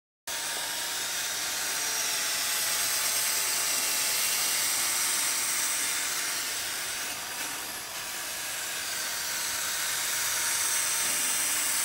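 Electric drill spinning a P800-grit sanding disc on a foam interface pad, wet-sanding a plastic headlight lens: a steady rushing noise with a faint motor whine, dipping briefly about eight seconds in.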